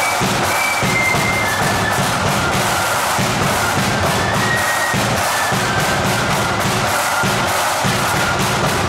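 Marching flute band playing: flutes carry a high melody over steady bass drum and snare drums.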